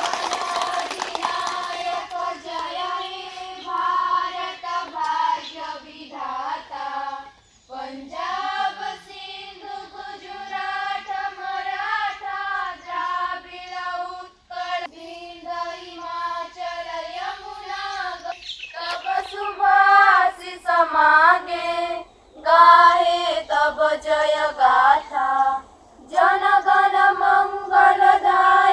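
A group of schoolchildren singing together in unison: long held notes sung line by line, with short breaks between phrases.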